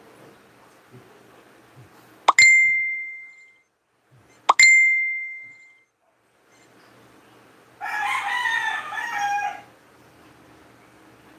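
Two sharp dings about two seconds apart, each ringing out at one high pitch over about a second, followed near the end by a rooster crowing once for about two seconds.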